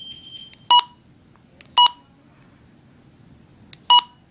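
Midland HH54VP2 weather radio's keypad beeping three times, short identical beeps at uneven spacing, each one the confirmation tone of an arrow-key press stepping the clock setting forward.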